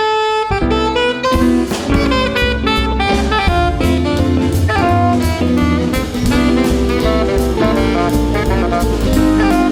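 Live small jazz band playing an instrumental passage: saxophone over drum kit, bass and piano and guitar comping, with regular cymbal strikes.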